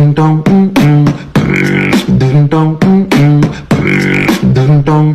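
Music: a beatbox-style vocal track, with pitched vocal notes stepping up and down between sharp percussive hits in a repeating rhythm.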